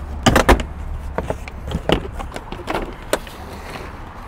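Plastic interior trim panel on a car's door pillar being pulled loose by hand: a quick run of sharp clicks as its clips let go about half a second in, then scattered lighter plastic clicks and knocks as it is worked free.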